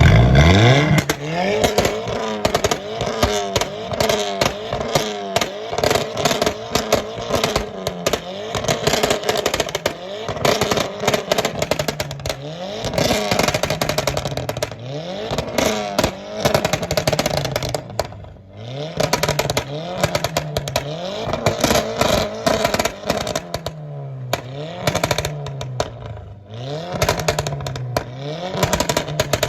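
Car engine revving up and down over and over, its pitch dipping and climbing again about once a second in places, with rapid clattering clicks throughout.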